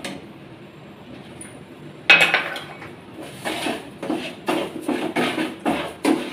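Metal spoon stirring and scraping in a nonstick frying pan of thickened milk with sugar just added: a sharp clink about two seconds in, then repeated scrapes, two to three a second.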